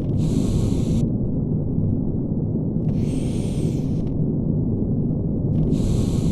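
Electric arc furnace arcing: a steady, dense, crackling rumble. About every three seconds a hiss lasting about a second sounds over it.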